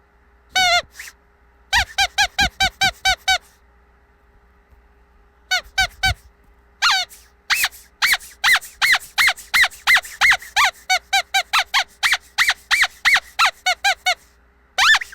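Squeaky dog toy squeezed over and over, giving short, high squeaks in quick runs of several a second, with a pause of about two seconds after the first run.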